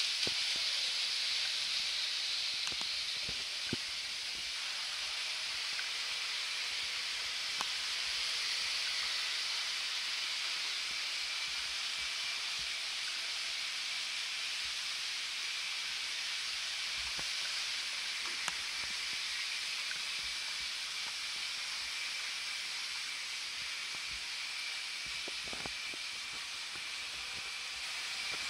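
Model railway trains running on the layout's track: a steady hissing rattle of wheels on the rails with a faint steady whine, and a few sharp clicks, the loudest cluster near the end.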